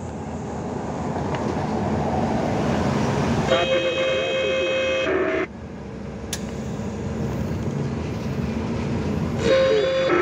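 Truck engine and tyres rumbling steadily in the cab while driving on a rough highway. A vehicle horn sounds for about two seconds, about three and a half seconds in.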